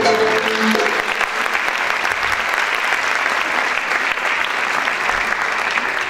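The final held note of a Turkish art music song stops under a second in, and audience applause carries on steadily.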